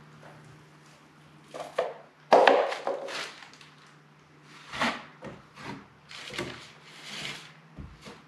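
Taping knife scraping joint compound in a mud pan, then spreading it along a drywall outside corner: a series of short scrapes, the loudest a little over two seconds in.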